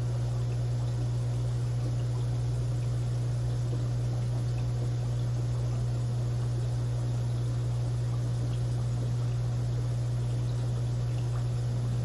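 Aquarium filter running: a steady low hum with water trickling and splashing.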